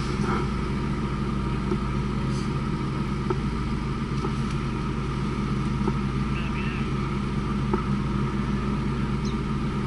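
Mazda Miata's four-cylinder engine idling steadily, heard from inside the open-top cockpit, with a few light clicks.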